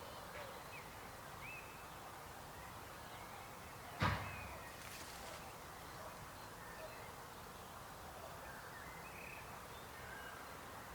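Faint, steady chorus of croaking frogs with a few short high chirps over it. A single sharp knock sounds about four seconds in, louder than anything else.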